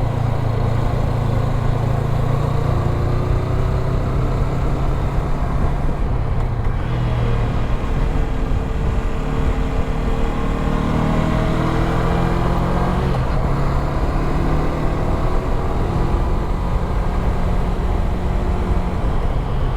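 Adventure motorcycle engine running through a series of tight bends, its pitch rising and falling again and again as it slows for corners and accelerates out in a low gear, over a steady low rumble of wind and road noise.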